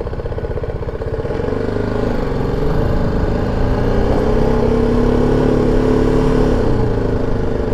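BMW G310 GS single-cylinder motorcycle engine running at low speed as the bike rolls along. Its note rises gently from about a second and a half in, then eases off near the end.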